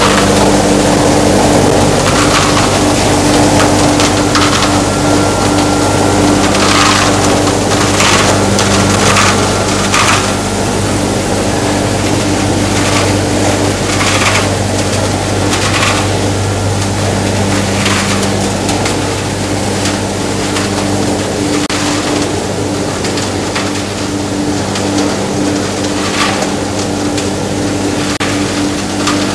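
Machinery of a PP woven-bag recycling line running: a steady motor hum with irregular cracking and crackling, as of plastic being broken up.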